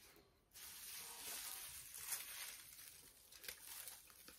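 Faint crackly rustling of an artificial wreath's leaves and flowers as it is handled, starting about half a second in and fading near the end.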